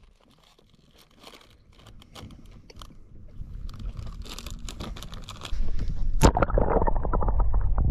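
Someone chewing a bread roll close to the microphone, with soft crunching bites that grow louder. About five and a half seconds in, a sudden loud low rumble takes over, with a sharp knock soon after.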